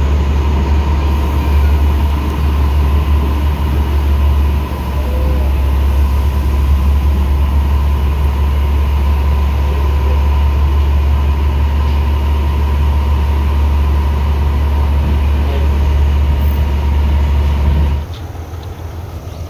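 Metre-gauge passenger train running, heard inside the carriage: a loud, steady low rumble with a thin steady whine above it. It drops off sharply near the end.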